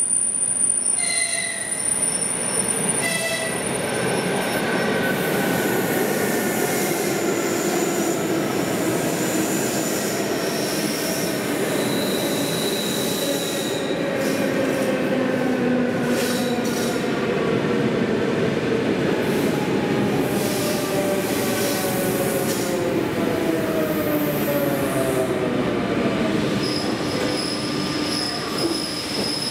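EP2D electric multiple unit arriving at a platform and rolling past as it brakes. Its running gear rumbles with a whine of several tones that falls steadily in pitch as the train slows. Two short horn-like tones sound near the start.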